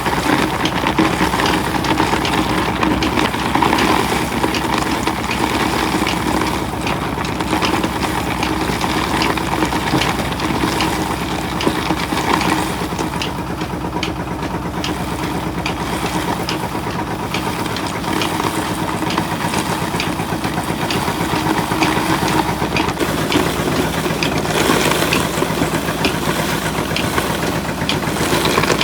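A machine's engine running steadily, with many short, irregular clicks and knocks over its drone.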